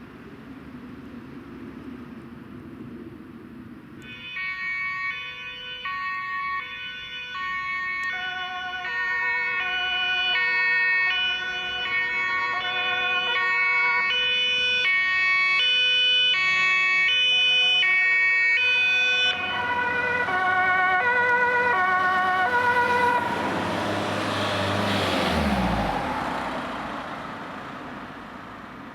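A German emergency vehicle's two-tone siren (Martinshorn) starts about four seconds in, alternating between its two notes as the vehicle approaches. About 19 s in its pitch drops as it passes, and a rush of engine and tyre noise swells, peaks and fades as the vehicle drives by.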